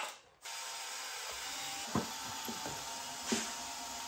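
Power drill running while drilling rivet holes through a snowmobile skid plate, with a few sharp clicks and knocks partway through.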